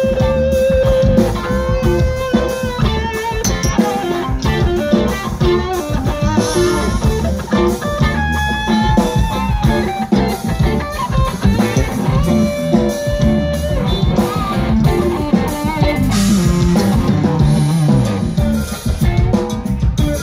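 A live rock band is playing: electric guitars over bass guitar and a drum kit, with long held lead notes standing out.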